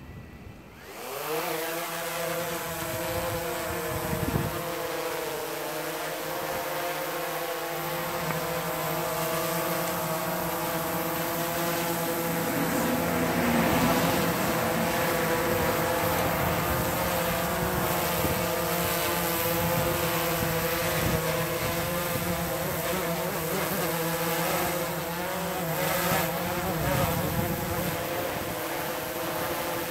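DJI Phantom 3 Professional quadcopter's four motors and propellers speeding up from idle about a second in. Then a steady buzzing whine with a slightly wavering pitch as the drone flies and hovers.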